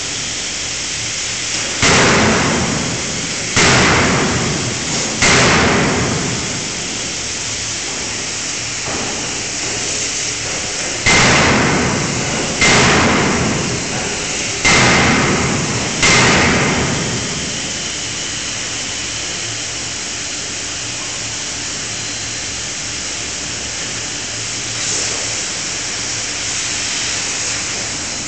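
A 5-ton fully hydraulic closed-die forging hammer striking a hot workpiece: three heavy blows a little under two seconds apart, then after a pause of several seconds four more, each ringing out and dying away over about a second. Steady background noise runs underneath.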